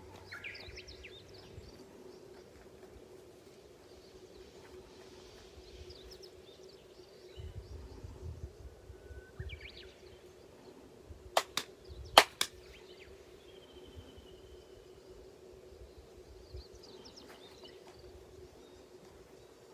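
Two sharp ceremonial hand claps (kashiwade) at a Shinto ground-purification rite, each a pair of slightly out-of-step claps, about halfway through. Small birds chirp throughout over a steady low hum.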